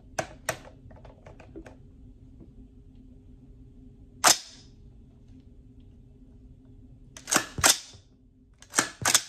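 AR-15 rifle in .350 Legend being cycled by hand to chamber rounds from its magazine in a feed test, the action making sharp metallic clacks. There is one loud clack about four seconds in, then quick pairs of clacks near the end.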